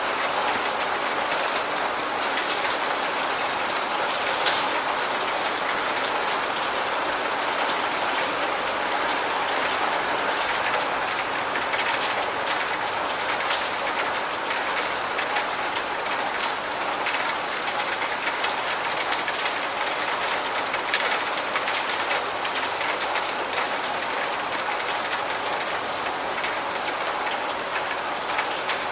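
Steady rain falling, an even hiss with many individual drops ticking through it.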